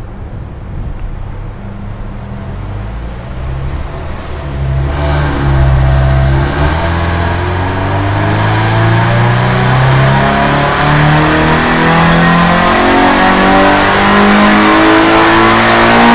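Toyota 86's naturally aspirated flat-four engine under a dyno run, its exhaust passing through a bi-modal rear muffler with the valves closed (quiet mode). The engine runs low at first. About five seconds in it gets louder and picks up in a few short steps, then revs steadily higher in one long pull to the end.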